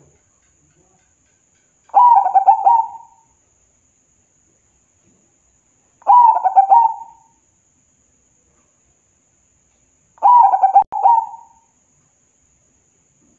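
Zebra dove (perkutut) singing its cooing song three times, about four seconds apart. Each phrase lasts about a second and is a quick run of stuttering, bubbling coo notes.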